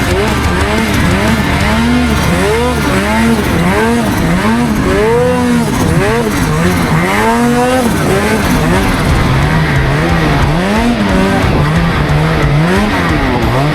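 Snowmobile engine revving up and down over and over, about once a second, then holding a wavering, steadier pitch for the last few seconds.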